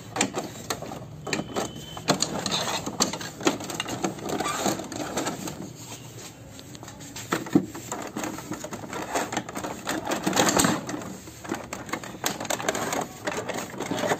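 Hard plastic casing of an Epson ink-tank printer being pulled and pried off by hand: irregular clicks, knocks and rattles of plastic.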